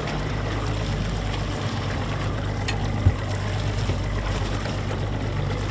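A boat's outboard motor idling with a steady low hum, under a wash of wind and water noise, and one brief knock about three seconds in.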